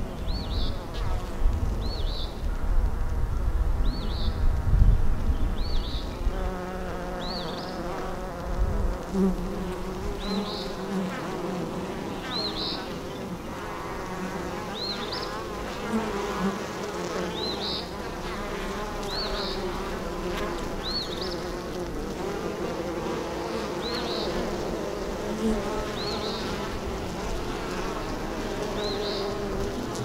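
Honey bees buzzing close to the hive entrance: many overlapping wing buzzes that rise and fall in pitch as bees fly past. A short high chirp repeats every second or two. A low rumble is loudest during the first eight seconds or so.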